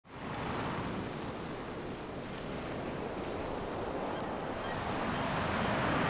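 Ocean surf breaking on a rocky shore: a steady rush of waves that fades in at the start and slowly grows louder.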